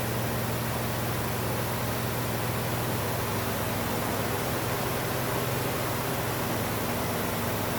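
Rebuilt Chevrolet 350 small-block V8 idling steadily, an even low running note with a hiss over it, while its ignition timing is being set.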